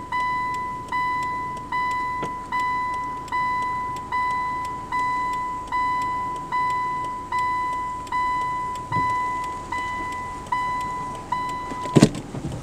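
A car's in-cabin reverse warning chime: a single-pitched tone struck and fading, repeating about once every 0.8 seconds while the car backs up. It stops about twelve seconds in, with a sharp knock.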